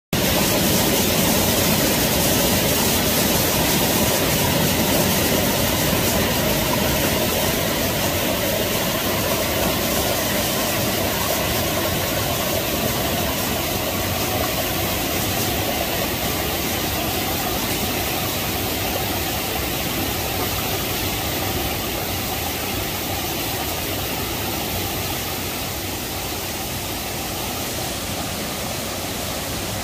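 Steady rush of water from a mountain stream and waterfall, cutting in abruptly and growing gradually a little quieter.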